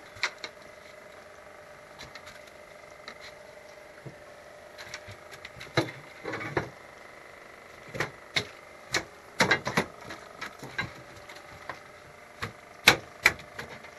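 Irregular sharp clicks and knocks, sparse at first and coming thicker and louder in the second half, over a faint steady hum: gear being handled on a wooden boat.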